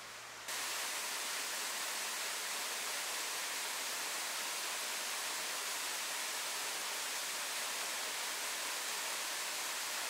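Steady, even rushing hiss of outdoor ambience in a forest, starting abruptly about half a second in and holding level throughout.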